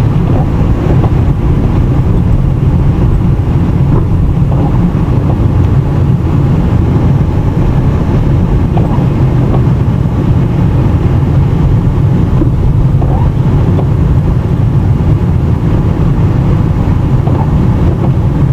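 Steady low rumble of a car driving, heard from inside the cabin: engine and tyre noise on snowy streets.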